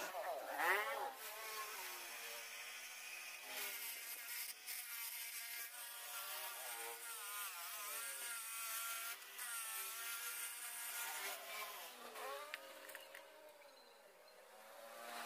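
Bench grinder running while a planer blade held in a wooden jig is pressed against its wheel: a whine that wavers up and down in pitch over a grinding hiss. The grinding fades near the end as the blade comes off the wheel.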